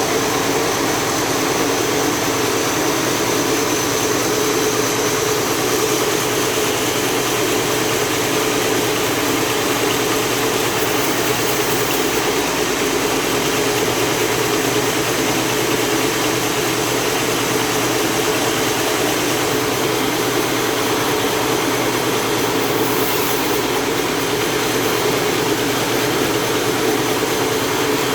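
Sawing machine running steadily with an unbroken drone, as a large jengkol log is sawn lengthwise.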